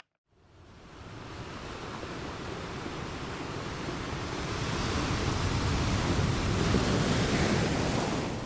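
A steady rushing noise with no tone or beat fades in just after the start, swells slowly over several seconds, and begins to ease near the end.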